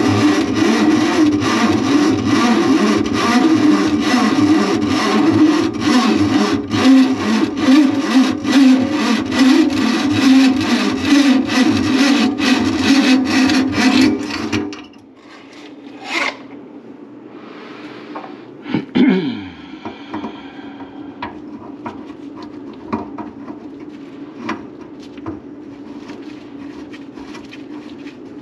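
Powered drain auger running steadily with a constant rattle, clearing a kitchen sink drain line clogged with grease. It stops abruptly about fifteen seconds in, leaving quieter scattered clicks and rattles.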